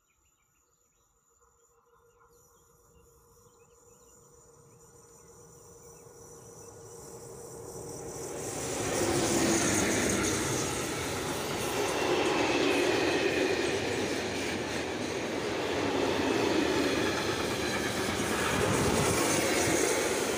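Freight train approaching and passing close by: a rumble that builds steadily from very faint over about eight seconds, then the loud steady noise of tank and container wagons' wheels running on the rails, swelling and easing as the wagons go past.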